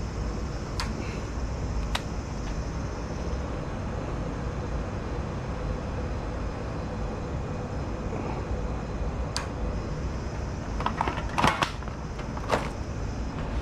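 Steady low rumble and hum of kitchen background noise. A few light clicks are scattered through it, and a short clatter of knocks comes near the end.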